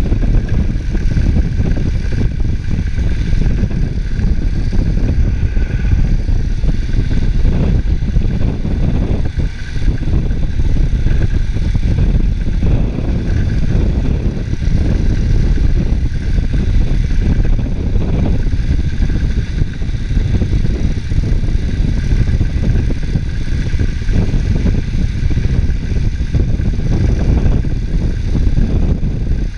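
ATV engine running steadily while riding, under a constant heavy low rumble.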